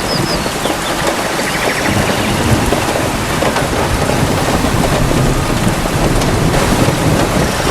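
Steady heavy rain pouring in a forest, with a continuous low rumble of thunder underneath. A faint, quick high trill sounds briefly about two seconds in.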